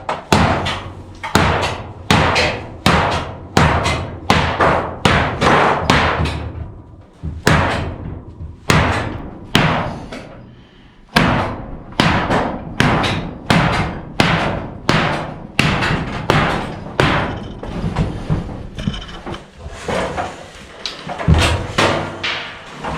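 A long run of hard, sharp strikes with a Victorinox Hunter XS pocketknife, about one and a half to two a second, each a knock with a short ring. There is a pause of about a second around ten seconds in.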